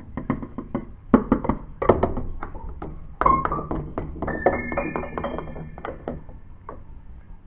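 Keyboard notes struck in a quick tumbling run, then a few notes held for a couple of seconds: a musical sound effect for a fall down the stairs.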